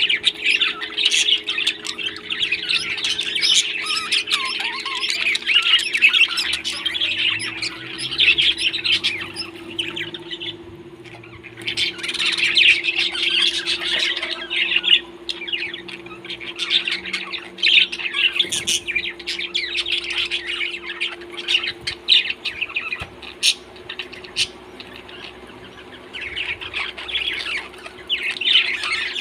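A group of pet parrots chirping and squawking almost without pause, with a brief lull about ten seconds in. A steady low hum runs underneath.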